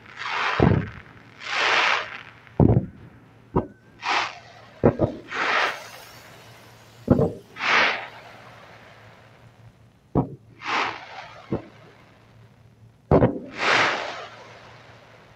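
Fireworks display: a string of sharp launch thumps, each followed by about half a second of hiss as fans of white comets shoot up, about eight volleys in all. It fades out near the end.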